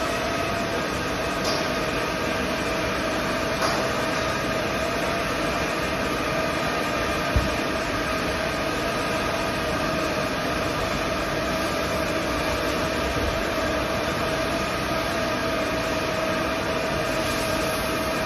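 YC-2018DZ automatic hot-air duct welding machine running while it welds a PVC ventilation duct: a steady blower hiss with a constant whine. A few faint clicks, and one sharp knock about seven seconds in.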